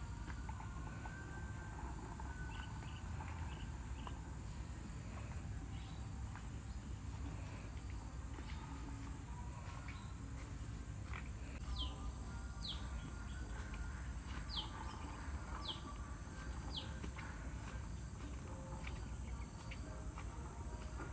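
Insects droning steadily at a high pitch while birds chirp; about twelve seconds in, a bird gives five short falling whistles, roughly one a second.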